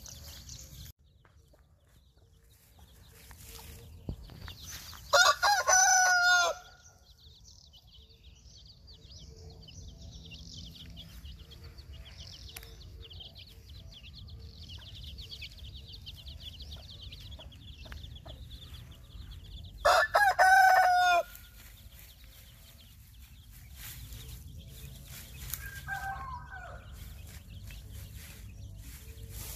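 Rooster crowing twice, each crow loud and about a second and a half long, some fifteen seconds apart, with a fainter, shorter call near the end.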